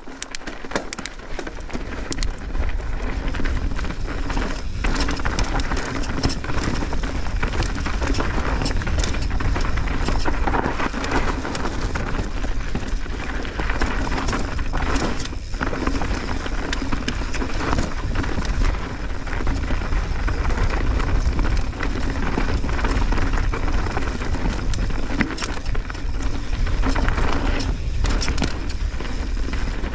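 Mountain bike descending a dirt singletrack at speed: tyres rolling over loose dirt and gravel, with frequent clattering and knocks from the bike over rough ground. Wind buffets the microphone throughout.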